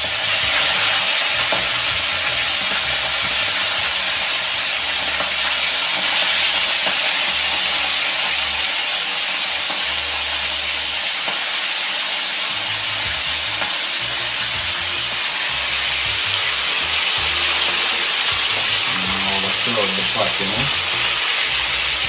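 Pieces of bird meat sizzling steadily in hot oil in a frying pan, the sizzle getting louder just after the start as raw pieces are laid in.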